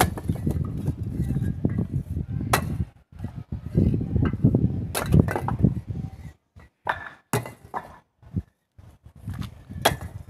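Several sharp clinks and knocks, a few seconds apart, over a low rumbling noise that drops away in the second half.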